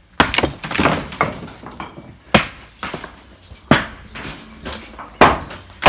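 A series of sharp, heavy knocks from demolition work on a fieldstone chimney, the hardest blows falling about every second and a half with lighter knocks between.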